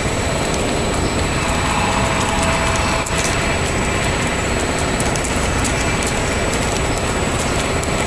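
Wild turkeys pecking birdseed off asphalt: scattered quick, sharp taps over a steady rushing noise.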